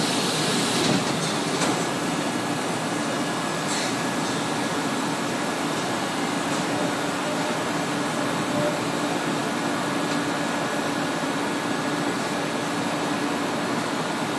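Stationary electric subway train standing at the platform, its onboard equipment giving a steady hum with a steady droning tone. A few brief clicks sound in the first few seconds.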